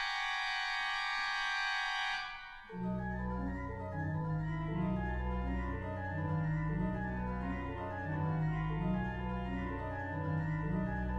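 Organ playing. A held, bright high chord with no bass breaks off about two seconds in, and after a brief gap a new passage starts, with deep pedal bass notes under quick-moving chords.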